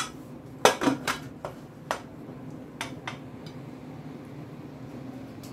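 Metal clanks and clicks of a pressure cooker lid being put on and closed, about seven sharp knocks in the first three seconds, then only a low steady hum.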